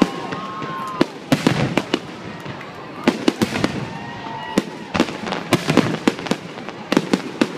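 Fireworks display: aerial shells bursting overhead in a rapid, irregular series of loud bangs with crackle between them.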